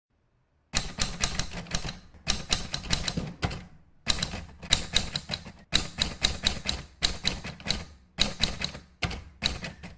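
Typewriter typing: rapid keystroke clacks in quick runs of several strokes, broken by short pauses.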